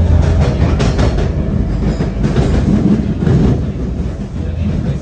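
Toronto subway T-1 train heard from inside the car as it pulls out of the station into the tunnel: a steady low rumble, with runs of wheels clacking over rail joints in the first second and a half and again about two and a half seconds in.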